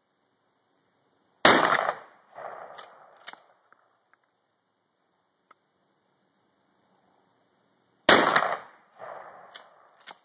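Two 12-gauge shotgun slug shots from a pistol-grip shotgun, about six and a half seconds apart, each a sharp blast with a decaying tail. About a second after each shot come two short sharp clacks, as the action is worked.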